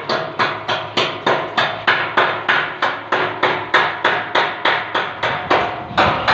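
Hammer striking the steel frame of a railing gate near its latch in a rapid, even run of about three blows a second, each with a short metallic ring, with a brief pause near the end.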